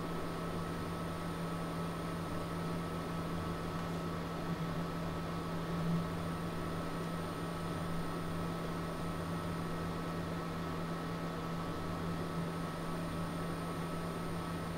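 A steady low hum with a faint hiss and a few steady higher tones over it, unchanging throughout apart from a slight swell about six seconds in.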